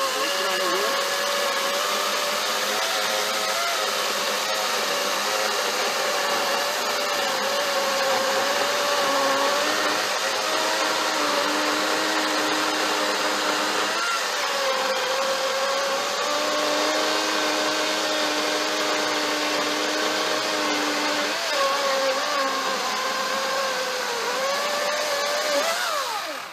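EGO 56-volt battery-powered 14-inch chainsaw running at full speed through a 14-inch log, a steady high electric-motor whine over chain-cutting noise. The pitch dips slightly a few times under load, and the motor winds down at the very end as the cut is finished.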